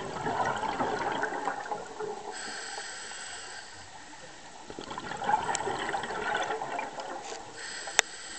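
Scuba diver breathing through a regulator underwater: two rushes of gurgling exhaled bubbles about five seconds apart, with a hissing inhale between them. A sharp click near the end.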